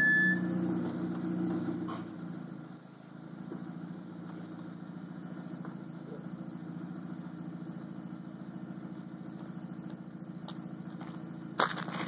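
Exhaust of a 2006 Audi A3 2.0T, a turbocharged four-cylinder with a catless 3-inch downpipe and no muffler. It is loudest at the start and dies away over the first two seconds, then runs steadily at low revs with an even pulse. A few sharp clicks and rattles come near the end.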